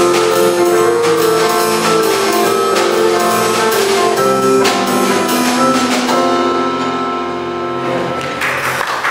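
Live jazz band of drum kit, electric bass and keyboard playing the end of a song: the drums stop about six seconds in and the final chord rings out and fades. Applause starts near the end.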